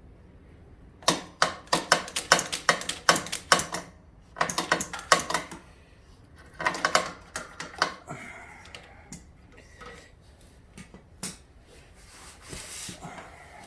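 Socket ratchet clicking in three quick bursts of sharp metallic clicks, then a few scattered light ticks of tools on metal.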